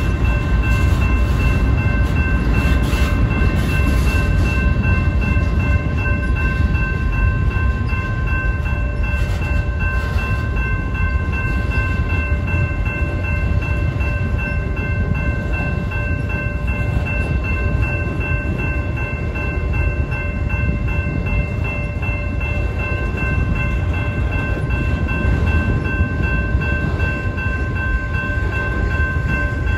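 Freight train cars rolling through a grade crossing: a steady, loud rumble of wheels on the rails. Over it rings a steady set of high tones from the crossing's warning bell.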